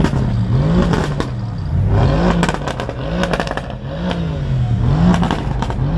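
A performance car's engine being revved in quick repeated blips, about five in a row, each rising and falling in pitch, with crackling exhaust pops after several of them.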